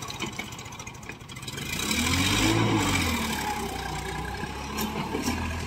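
New Holland 3510 tractor's three-cylinder diesel engine revving up and back down about two seconds in, then running steadily under load as it tries to pull a fully loaded trolley stuck in wet sand. Two short clicks near the end.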